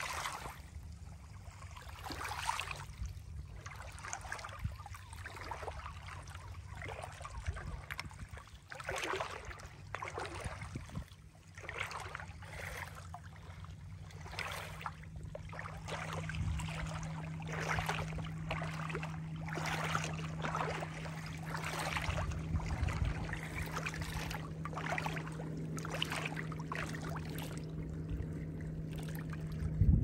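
Small waves lapping onto a shell beach, with irregular splashes and trickles about once a second. Under them runs a low steady hum that grows louder about halfway through.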